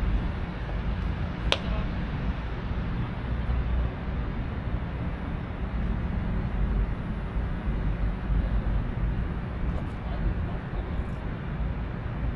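Low, rumbling wind noise on the microphone, with a single sharp crack about a second and a half in.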